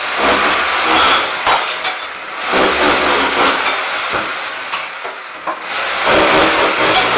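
Rotary hammer chipping shower wall tiles off, running in three bursts of one to two seconds with short pauses and a few clinks of falling tile between.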